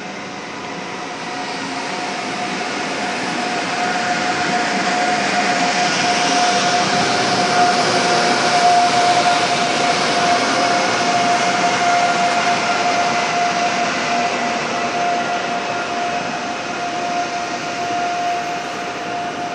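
PKP Intercity EU44 Husarz (Siemens Taurus) electric locomotive hauling passenger coaches past along the platform track: a rushing rumble of wheels on rail with a steady high whine. It grows louder to a peak about nine seconds in as the locomotive goes by, then eases off as the coaches follow.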